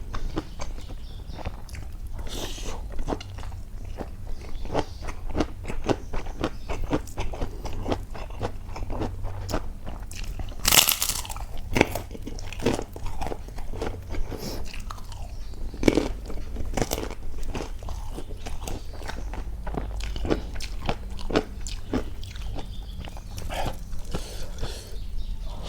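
A person chewing and crunching crisp food close to the microphone, with many irregular crackling bites, over a low steady hum.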